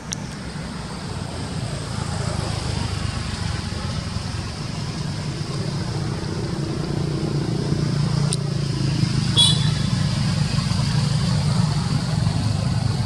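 A motor vehicle's engine running with a low hum that slowly grows louder, its pitch bending a little around the middle. A short high squeak cuts in about nine seconds in.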